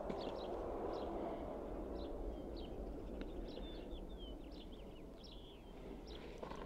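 Small birds chirping, many short high calls coming every fraction of a second, over a steady low background rumble.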